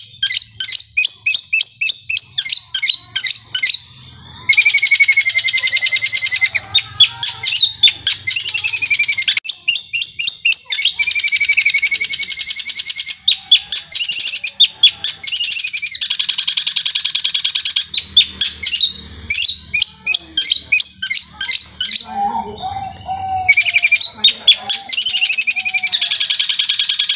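Caged long-tailed shrike (cendet) singing a loud, continuous song of very rapid high notes run together into fast rattling trills, like a sewing machine. There are brief breaks about four seconds in and again near the end.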